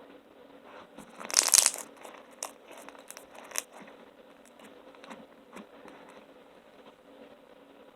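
Foam-bead slime being squished and worked by hand, giving crunchy crinkling crackles: a loud burst about a second and a half in, then scattered smaller pops and clicks.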